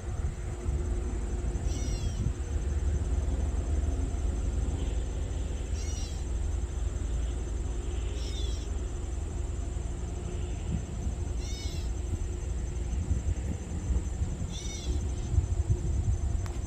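Low, steady rumble of an EMD GP9R diesel locomotive's V16 two-stroke engine as it creeps toward the cars. Five short, high mewing calls, each falling in pitch, sound over it every few seconds.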